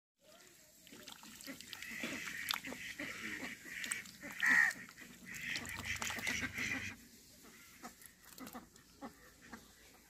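White domestic duck dabbling its bill in wet mud and shallow water: a busy run of quick wet clicks and slurps mixed with nasal duck calls, loudest about halfway through, then quieter after about seven seconds.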